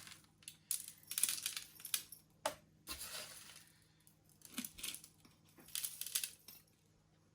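Small hard grains of potting substrate rattling and clinking into a glass container in several short, irregular bursts.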